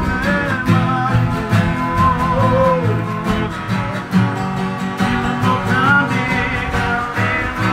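Acoustic guitar music with plucked and strummed chords and a voice singing a melody over them.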